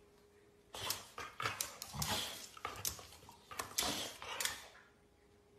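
American bully dog fussing at a toothbrush held to its mouth, making mouth and throat noises: a string of short, noisy bursts starting about a second in.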